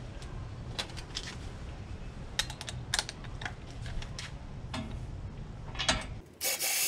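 Scattered clicks and clinks as a cordless drill with a socket is handled and fitted onto the reel mower's shaft, over a low rumble. Near the end the drill starts with a sudden loud, steady whir, spinning the mower's reel blades.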